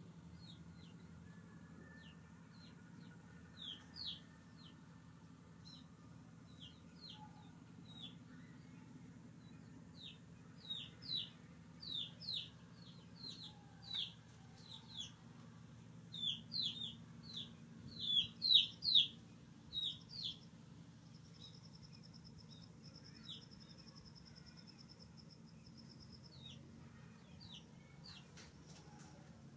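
Birds chirping: repeated short, high chirps that slide downward, coming in clusters and loudest a little past the middle. A faint steady low hum lies underneath.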